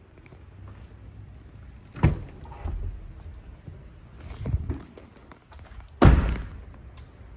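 A few dull thumps and knocks from moving around a pickup's cab and its open rear door. The loudest is about six seconds in.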